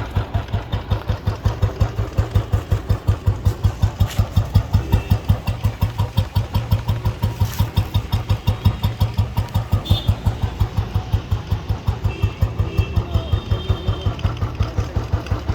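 Royal Enfield Electra 5S (Bullet) single-cylinder engine idling with a steady, even thump, about six beats a second.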